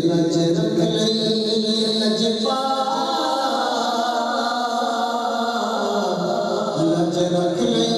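Islamic devotional chanting sung by voices without instruments, holding long drawn-out notes that shift pitch a couple of times.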